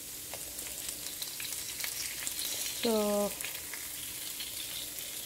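Hot oil sizzling with small scattered crackles as cumin, mustard seeds, turmeric and curry leaves fry in a pan for a tempering.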